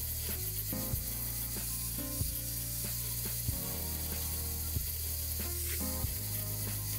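Background music: a low bass line that changes note about every second and a quarter, with a sharp clicky hit on each beat.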